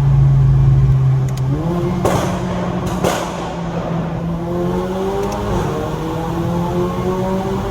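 Stage 2 tuned Mercedes-AMG GLA 45's turbocharged 2.0-litre four-cylinder, with aftermarket downpipe, open intake filter and a pop-and-bang map, pulling under acceleration with its pitch stepping up and then climbing. Two sharp cracks ring out about two and three seconds in.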